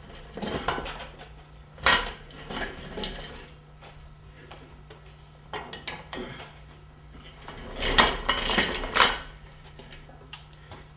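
Bursts of metallic clattering and clinking from tools and car parts being handled during an engine-bay teardown, in four short clusters. A steady low hum runs underneath.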